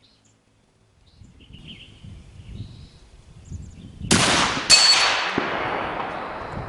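Suppressed bolt-action rifle fired at long range: a sharp report about four seconds in, then a second, louder crack about half a second later, and a long echo rolling away.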